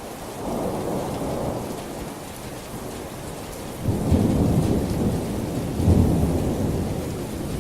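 Thunder rumbling over heavy rain. The rumble swells about half a second in, then grows loudest in two strong peaks about four and six seconds in before slowly fading.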